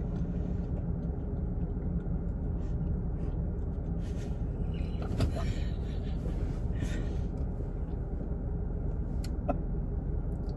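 Steady low rumble inside a car cabin with the engine idling, with a few faint short clicks.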